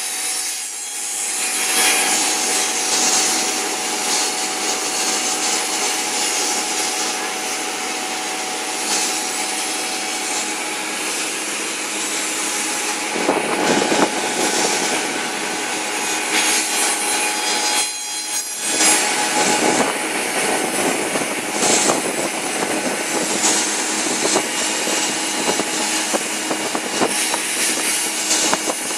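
Two-head cutting and milling machine running, a steady motor hum under the rasping noise of blades cutting, the cutting sound shifting about halfway through and again a few seconds later.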